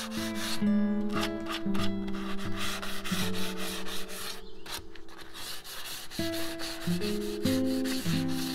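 Hand sanding: a sheet of 220-grit sandpaper rubbed back and forth over the wooden edges of a chest in quick repeated strokes, with background music playing held notes.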